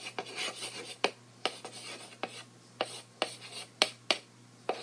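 Chalk writing on a blackboard: scratchy strokes broken by sharp taps as the chalk meets the board, about two taps a second.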